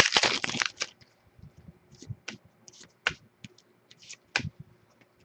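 Trading cards being handled: a brief rustle of cards sliding in the first second, then scattered light clicks and taps as cards are flipped and set down.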